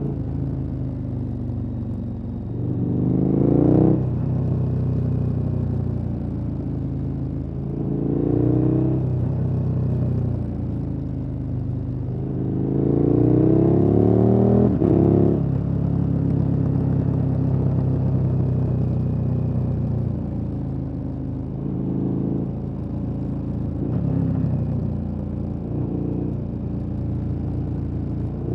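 KTM 1290 Super Adventure S V-twin engine with an aftermarket exhaust, under a rider's throttle: the revs climb several times, each time dropping sharply when the throttle closes, the longest and loudest climb near the middle, with steady running between.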